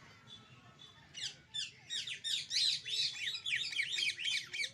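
Parrots calling: a rapid string of short, shrill, high calls, several a second, starting about a second in.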